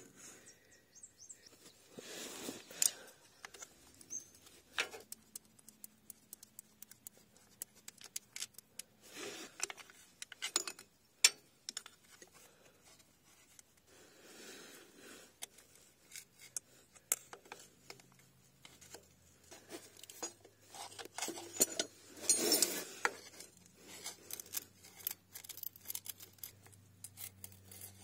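Irregular small metal clicks, taps and scrapes of hand tools and a hook pick working on the selector lever and selector shaft of a ZF 5HP24 automatic gearbox, with a longer burst of scraping near the end.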